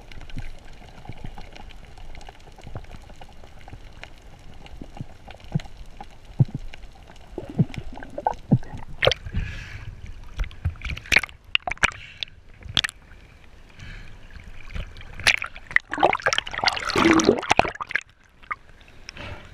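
Water splashing and gurgling around a camera carried by a snorkeler, underwater and at the surface: a steady low wash of water for the first several seconds, then repeated irregular splashes from about eight seconds in, loudest near the end.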